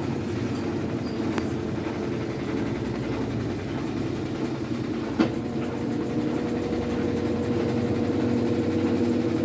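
Washing machine running with a steady mechanical hum and a single sharp click about five seconds in. The owner says there is a strange noise from beneath the motor, with the machine badly out of balance.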